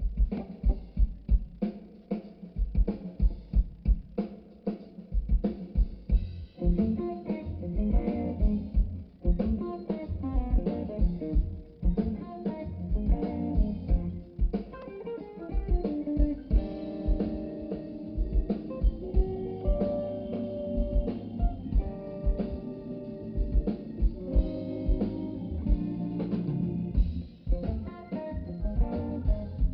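Live band playing an instrumental tune: a drum kit keeps a steady beat alone at first, and guitar comes in about six seconds in, playing a melody over the drums.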